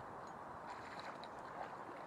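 Shallow stream trickling softly, with a few faint high ticks.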